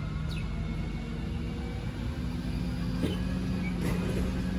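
Steady low mechanical hum, such as a motor running, with a few faint short chirps and clicks over it.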